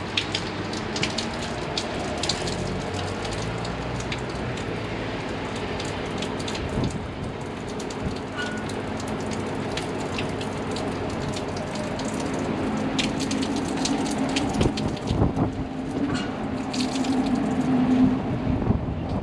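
Steady rain with many small drop clicks close by. A low steady hum comes in and grows louder in the last few seconds.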